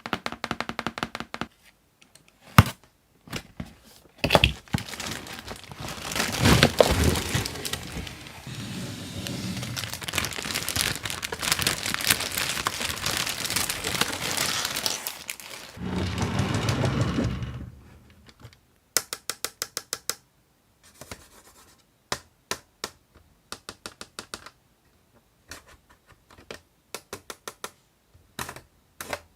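Packaging being crinkled and torn open by hand for several seconds while a toy is unboxed, then a run of separate sharp clicks and taps, like plastic pieces being handled and snapped.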